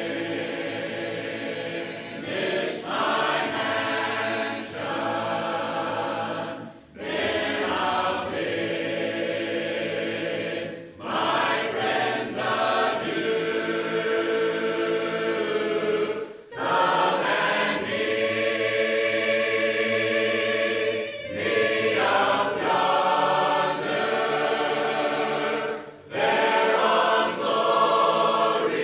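A church congregation of men's and women's voices singing a hymn a cappella, with no instruments, in held phrases about four to five seconds long separated by brief gaps.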